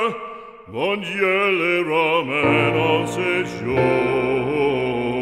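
Operatic-style singing: a solo voice holds long notes with wide vibrato. About two seconds in, sustained low accompaniment joins it.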